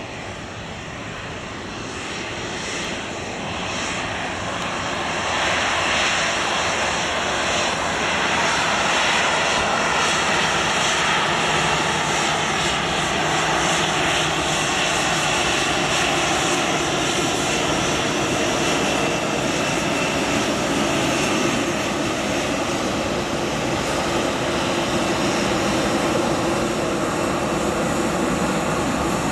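Boeing 737-800's CFM56-7B turbofan engines at taxi power: a steady jet whine over a rushing roar. It grows louder over the first several seconds as the airliner approaches, then holds steady.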